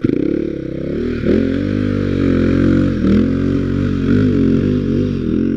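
Dirt bike engine revving as the bike pulls away, cutting in suddenly and rising and dipping in pitch with the throttle.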